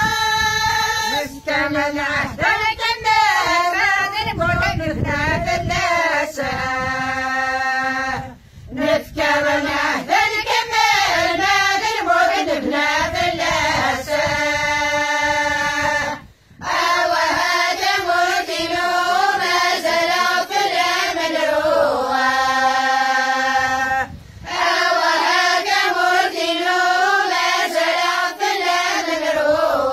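Women's and girls' voices singing a Kabyle song together in unison, without instruments. The phrases run about eight seconds each and end on long held notes, with brief pauses for breath three times.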